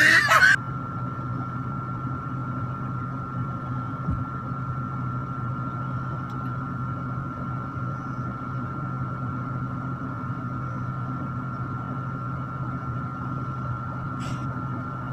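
Steady hum of an electric stand fan running, with a thin steady whine above it. A loud burst of sound cuts off about half a second in.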